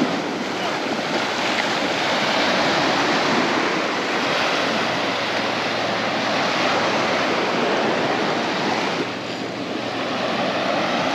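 Sea surf washing steadily onto a beach, with wind on the microphone; it eases briefly about nine seconds in.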